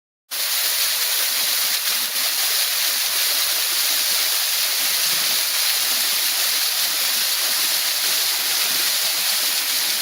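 Waterfall rushing, a loud steady hiss of falling water that cuts in suddenly and stops suddenly.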